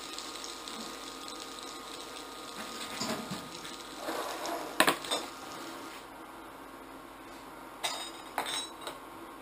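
Frying pan of kebabs, onions and tomatoes sizzling as it is moved aside on the glass induction cooktop, with clatter and a sharp knock about five seconds in; the hiss then fades, and two or three wooden knocks near the end come from a cutting board being set down on the cooktop.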